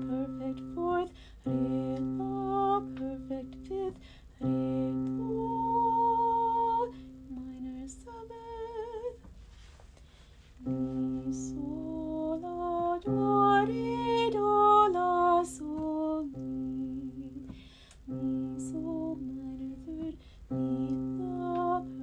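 A woman singing solfège pitches of a pentatonic scale, stepping up and down with a slight vibrato, over a steady held keyboard note that stays on one low pitch. The held note stops and comes back several times.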